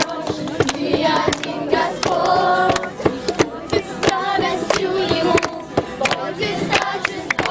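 A group singing a Russian-language worship song together, with mixed female and child voices, over a steady run of sharp rhythmic beats.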